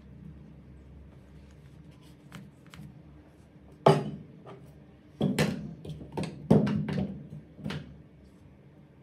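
Hard plastic tool housing knocking against a metal workbench while the motor end of a Makita DHR243 rotary hammer is handled: a few faint clicks, then about six sharp knocks, some in quick pairs, from about four seconds in.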